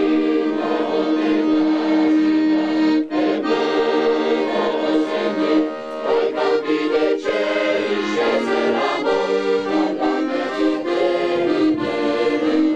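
Accordion playing sustained chords of a traditional melody, with a short break about three seconds in.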